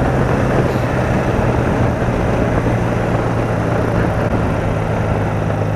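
BMW R80RT's air-cooled flat-twin engine running at a steady road speed, its even drone under heavy wind rush on the helmet-mounted microphone.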